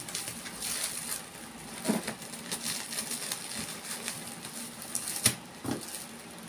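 Clear plastic wrapping on a parcel crinkling and rustling as it is cut open with scissors, with scattered sharp clicks, the loudest about five seconds in.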